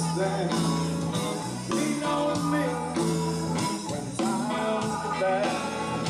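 Rock-style song with a singing voice over guitar and a steady bass line.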